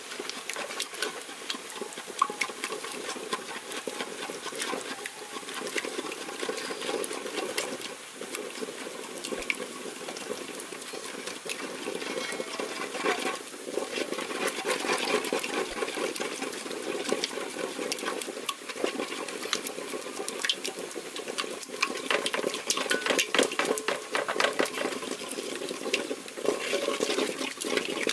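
Wooden stirring stick sloshing and knocking in a metal pot of thin vegetable soup as peanut paste is mixed into it: a constant patter of small knocks and scrapes, busier and louder in the last several seconds.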